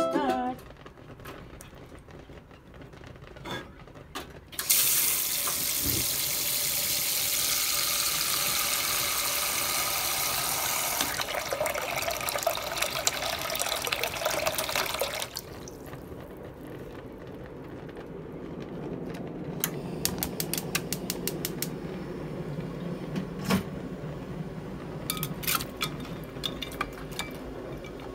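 Tap water running into a metal cooking pot in a sink, starting about five seconds in and shutting off about fifteen seconds in. Afterwards, scattered light metallic clinks as a folding stainless steel steamer basket is handled and set into the pot.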